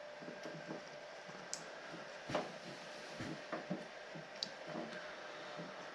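Light, scattered clicks and small handling noises of wiring and plastic parts being tucked into a snowmobile's handlebar throttle housing, over a faint steady hum.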